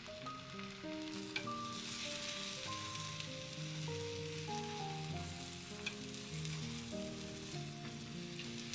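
Egg sizzling in a rectangular tamagoyaki pan over a gas flame as the omelette is rolled up, with a couple of light taps, over soft background music with a slow melody of single notes.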